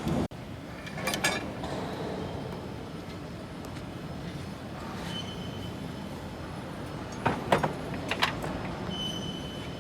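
Steady workshop noise with sharp metal clanks, one about a second in and a quick cluster about seven to eight seconds in, as heavy press brake parts are handled during assembly.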